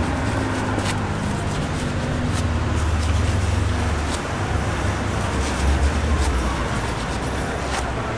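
Steady low rumble of road traffic and running vehicle engines, swelling a little about three and six seconds in, with a few faint sharp clicks over it.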